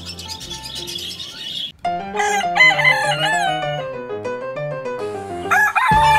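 Rooster crowing over background music. One long crow begins about two seconds in, and a second crow rises into a held note near the end.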